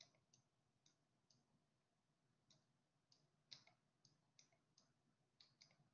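Near silence broken by a dozen or so faint, irregular clicks from a stylus tapping on a tablet screen while handwriting.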